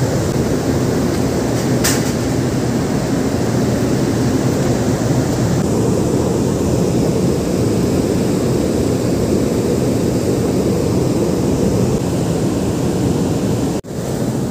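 Steady low rumble of a ship at sea, from its machinery and wind across the deck, with one faint click about two seconds in. The sound drops out for an instant near the end.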